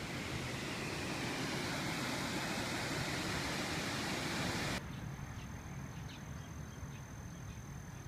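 Creek water rushing over a small waterfall in a shale gorge: a steady, even rush. About five seconds in it cuts to a quieter, more distant wash of water, with a steady high-pitched whine and a few faint ticks over it.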